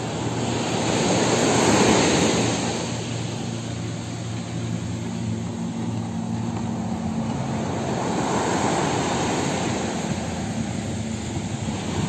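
Small waves washing onto a sandy beach, with the surf swelling about two seconds in and again near eight seconds, over a steady low engine hum.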